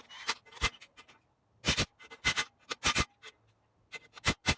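Sped-up workshop handling noise: an irregular run of about a dozen short, sharp metal clicks and knocks, some in quick pairs, as engine parts and tools are set down and handled on a bench.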